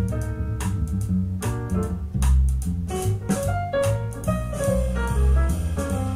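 Jazzy instrumental music with piano, guitar and bass over a steady drum beat, played back through a pair of Fostex P1000K full-range drivers in all-steel speaker enclosures and picked up by a microphone in the room.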